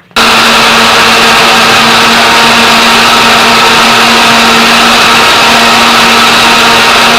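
Electric kitchen blender running at full speed, starting suddenly at full level and staying steady, a dense whir over a steady hum.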